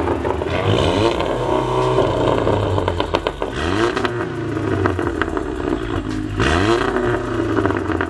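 Volkswagen Golf R's turbocharged four-cylinder engine revved in about four quick blips through an aftermarket Armytrix downpipe and valved cat-back exhaust, with sharp crackles and pops after some of the blips as the revs drop.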